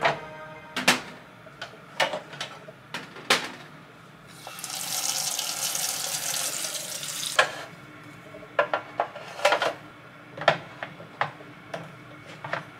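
Plastic containers and bottles knocking and clicking as they are set into a plastic kitchen organizer tray, a series of sharp taps. In the middle, a kitchen tap runs for about three seconds, water splashing onto a plastic tray held under it in a stainless sink.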